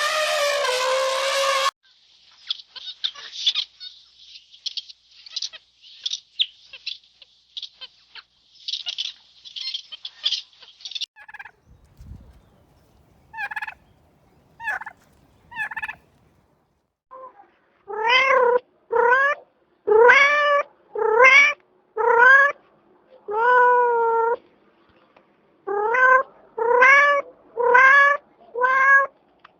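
A sequence of animal calls. A loud pitched call opens, followed by several seconds of high, rapid peeping. After a single low thump come three short calls, then a run of short pitched calls, each rising slightly, repeated about once a second.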